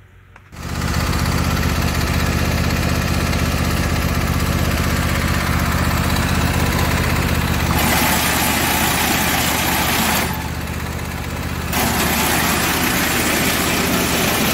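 Husqvarna YTH22V46 lawn tractor's V-twin engine starts about half a second in and runs steadily. From about 8 seconds in a loud racket from underneath the tractor joins it, easing off for about a second and a half before returning. The racket persists even with the drive belt back on its pulley.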